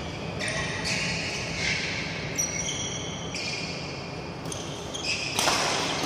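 Badminton players' shoes squeaking repeatedly on the synthetic court mat during a rally, with a sharp racket smack on the shuttlecock near the end.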